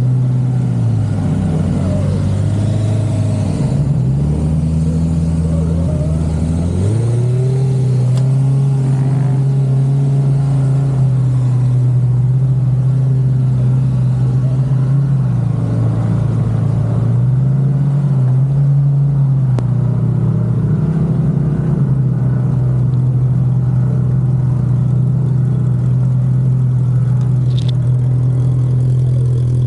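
A vehicle engine running steadily on a trail, its pitch stepping up and down several times as the revs change, with a brief squeak near the end.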